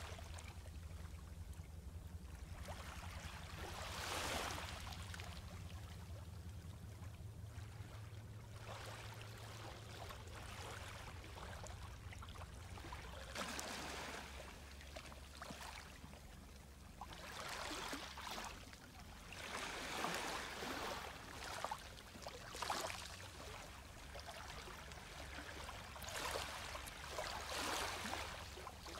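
Small ripples of a calm sea lapping faintly on a sandy, shelly beach, a soft wash over the sand every few seconds, over a low steady rumble.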